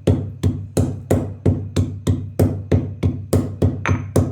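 Pestle pounding dry ginger, black peppercorns and cloves in a mortar to grind them to powder: steady strikes about three a second, each leaving a short low ring.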